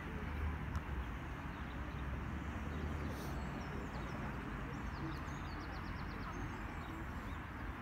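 Steady outdoor background noise: an even rush with a low rumble beneath it, typical of distant road traffic, and a few faint high chirps about five seconds in.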